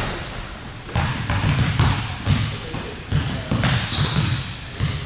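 A basketball bouncing and being passed on a hardwood gym floor: thuds about two a second, echoing in the large hall, with a couple of short high squeaks.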